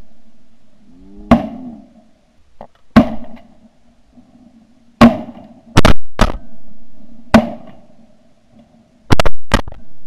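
Shotgun shots, eight in all, each a sharp crack with a short decaying tail; some come in quick pairs, around six seconds in and near the end. A faint steady low hum runs between the shots.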